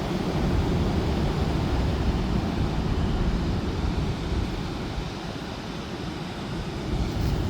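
Strong wind buffeting the microphone in low rumbling gusts over the steady rush of surf from big cyclone swell, easing slightly about five seconds in and picking up again near the end.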